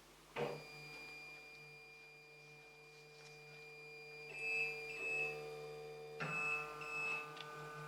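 Dowell 3D D2-300 3D printer's stepper motors whining as the axes move at the start of its bed leveling routine, a steady set of tones that changes pitch about four seconds in and again about six seconds in, with short high chirps in pairs.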